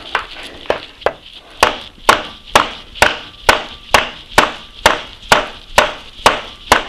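Rubber mallet striking the end of an Atlas 10F lathe's headstock spindle in steady blows, about two a second, harder from about a second and a half in. It is driving a stuck spindle out through the bull gear and pulley.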